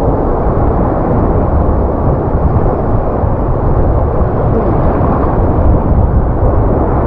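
Choppy sea surf washing and sloshing around a wader standing in the water, heard from just above the waterline as a steady, loud low rushing with no let-up.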